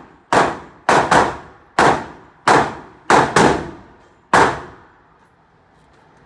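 Gunshots echoing inside an indoor shooting range: about eight shots in four seconds, some in quick pairs, each followed by a short ringing tail, then the firing stops.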